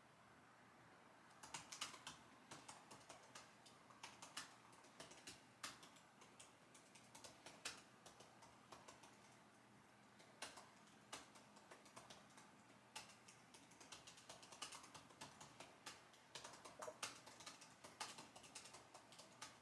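Computer keyboard typing: quick, irregular runs of key clicks with short pauses between them, starting about a second and a half in.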